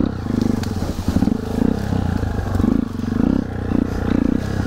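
Dirt bike engine running low and steady, with short low surges roughly once a second.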